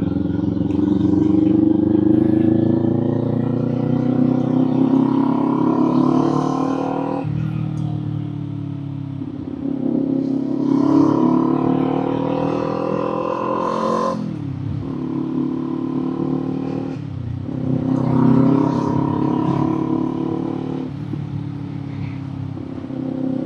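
Kawasaki Z400's parallel-twin engine and exhaust, heard from the rider's seat, pulling through the revs three times: each time the note climbs steadily for several seconds, then drops sharply as the throttle closes or a gear changes.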